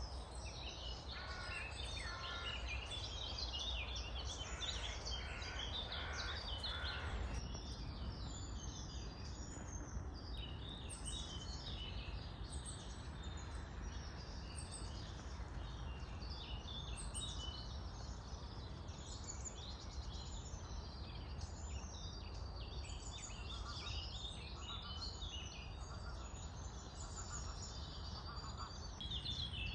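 Several woodland birds singing at once, a dense chorus of overlapping chirps and trills, over a steady low rumble.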